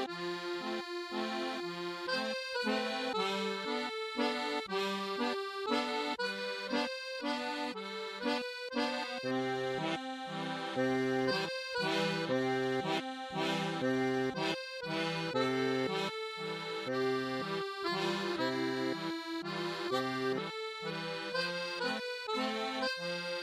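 Background instrumental music with a steady, bouncing bass-and-chord accompaniment under a melody.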